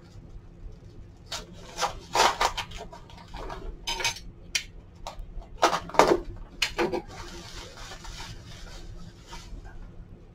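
Bubble wrap and blue painter's tape being handled and cut open to unwrap a small china bowl. There is a run of sharp crackles and rips between about one and seven seconds in, then a softer steady rustle of the plastic.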